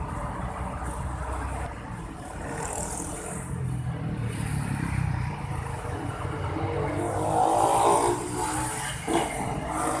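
Road traffic: cars passing on a multi-lane street with a steady low rumble, one engine growing louder and rising in pitch as it goes by about seven to eight seconds in. A short knock sounds just after nine seconds.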